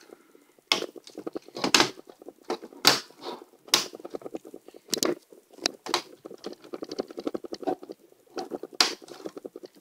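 Plastic clips of an HP Pavilion dv7-4100 laptop palm rest snapping into place one after another as it is pressed down onto the base: about seven sharp clicks at irregular intervals, with handling rustle between them.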